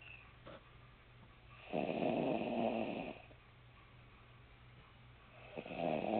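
Snoring in sleep: two long, rough snores, each lasting over a second, the first about two seconds in and the second starting near the end, over a faint steady hum.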